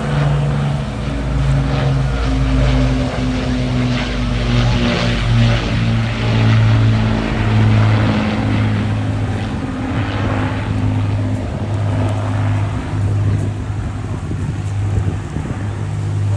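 Avro Lancaster bomber's four Rolls-Royce Merlin V12 engines droning as it flies low past, the pitch falling slightly over the first few seconds.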